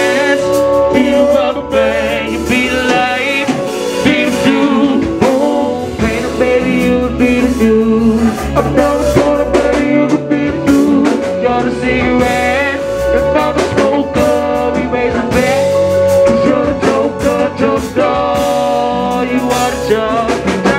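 Band playing a song at rehearsal with a man singing lead into a handheld microphone, his voice wavering in long held notes over the music.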